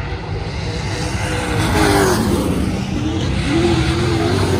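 Race car engines running at speed, their pitch rising and falling, louder from about a second and a half in.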